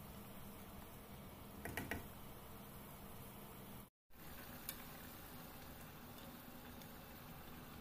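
Tomato sauce with chicken meatballs simmering faintly in a frying pan, with a few knocks of a wooden spatula against the pan just under two seconds in. The sound drops out for a moment about four seconds in, and a single click follows.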